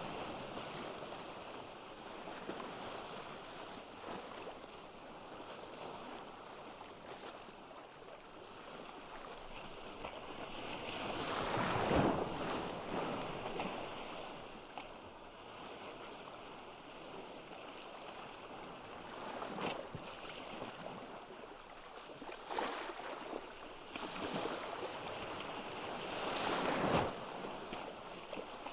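Sea waves washing onto a beach: a steady wash that swells and falls, with the biggest wave breaking about twelve seconds in and several more near the end.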